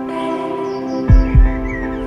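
Outro background music with sustained notes. About a second in, two deep thumps come in quick succession like a heartbeat; they are the loudest sound. Faint chirping follows near the end.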